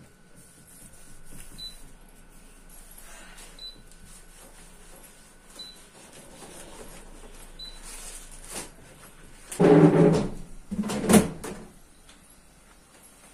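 A cloth wiping a refrigerator, with faint short high beeps about every two seconds from the open fridge's door alarm. About ten seconds in come two louder short sounds as the fridge is handled.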